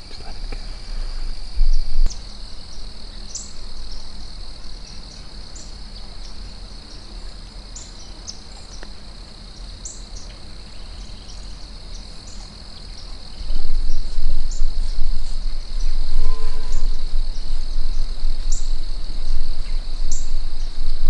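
Steady high-pitched trill of crickets, with short high chirps about once a second. Underneath is a low rumble that grows much louder about two-thirds of the way through.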